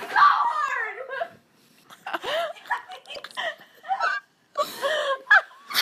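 Teenage girls laughing and squealing in fits and bursts while they play-fight, with short breaks about a second and a half in and again past four seconds.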